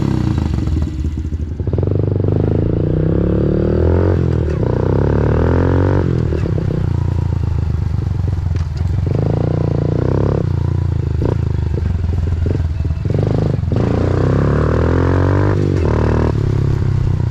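Honda CRF110F's small four-stroke single-cylinder engine breathing through a Yoshimura RS-9T full exhaust, revving up and dropping back again and again.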